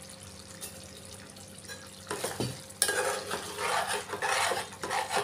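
Steel ladle stirring and scraping through thick mutton curry in a metal pot, mixing in fresh coriander and mint leaves. The stirring comes as a run of strokes from about two seconds in.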